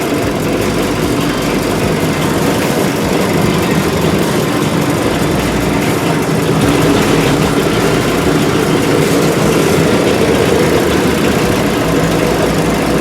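Small 6.5 hp single-cylinder petrol engine running steadily, driving a chicken-feather plucking machine, a little louder after about three seconds.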